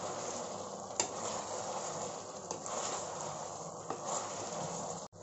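Thick sauce sizzling in a metal kadhai over a high flame while a wooden spatula gently stirs fried cauliflower balls through it. A few light knocks of the spatula against the pan sound over the steady sizzle, which cuts out briefly near the end.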